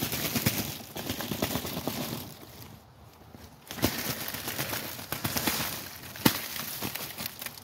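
Windmill palm fronds rustling with many sharp ticks as a hand shakes and knocks wet snow off them. It comes in two bouts with a short pause about three seconds in.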